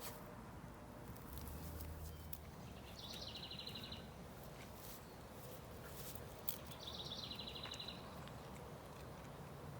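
A small songbird singing twice, about four seconds apart: each time a brief high phrase ending in a quick trill. Faint scattered clicks are heard underneath.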